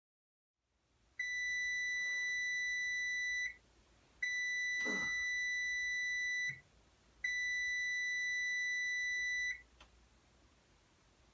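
Electronic oven timer beeping: three long, steady beeps of about two seconds each, a second apart, signalling that the cooking time is up.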